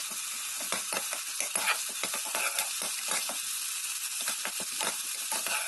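Onion, tomato and ginger-paste masala sizzling in oil in a steel pot while a steel spoon stirs it, with irregular scraping taps of the spoon against the pot. The masala is being fried down until the ginger paste is cooked.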